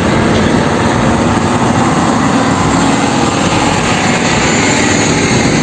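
Spray of water washing mud off a toy tanker truck: a loud, steady hiss with no break.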